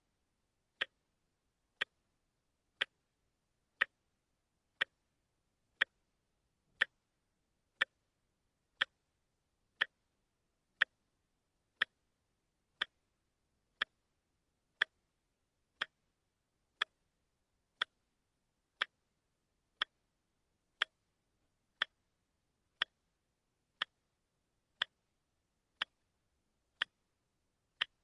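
Wristwatch ticking steadily, one sharp tick each second, the once-a-second step of a quartz movement.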